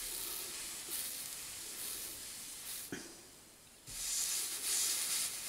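Salt-water-soaked pad sizzling and hissing under an etching electrode as current passes into a steel plate during electro-etching. The hiss drops away for about a second some three seconds in, then comes back louder.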